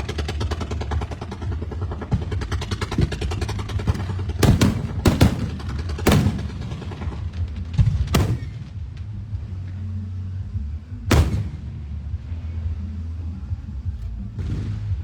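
Fireworks: rapid crackling in the first few seconds, then five loud booms of shells bursting, spread over the next seven seconds, over a steady low rumble.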